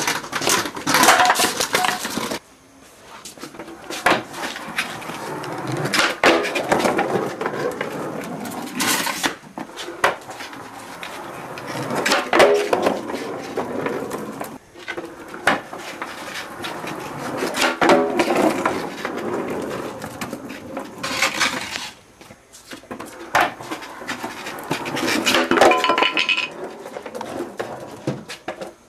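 Skateboard wheels rolling and rattling over a concrete floor, with sharp clacks and knocks throughout, in several runs split by short pauses.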